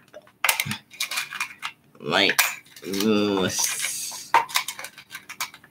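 Small metal nails clinking and rattling, a run of short sharp clicks as they are rummaged through to pick out a tiny one. A brief wordless vocal sound comes twice, about two and three seconds in.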